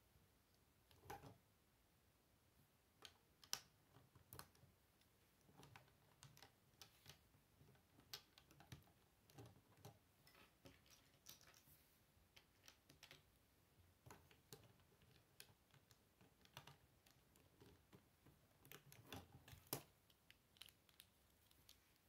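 Faint plastic clicks and taps of Lego bricks being handled and pressed together by hand, coming irregularly, with two sharper snaps, one about three and a half seconds in and one near the end.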